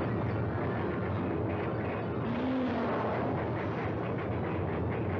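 Steady rumbling, rushing noise on an old film soundtrack, a sound effect carried over from the shots of the twisting bridge, with a brief low tone about two seconds in.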